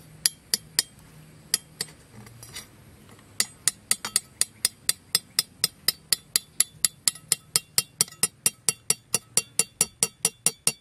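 Sharp metallic clinks as the metal of a scissors trap and its wire pin is tapped: a few scattered taps at first, then a steady run of about four a second from about three seconds in.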